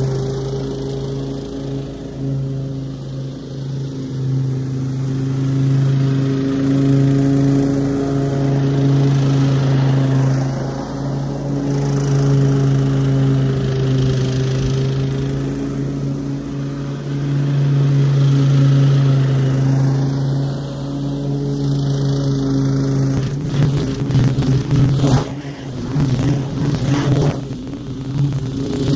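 Exmark 30-inch walk-behind lawn mower's engine running steadily while cutting grass. About six seconds before the end its steady note breaks up into an uneven, choppy sound.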